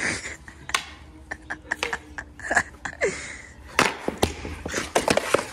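Ice hockey sticks clacking against each other and the puck in a faceoff scramble, a quick irregular run of sharp knocks, with skate blades scraping on a synthetic ice surface.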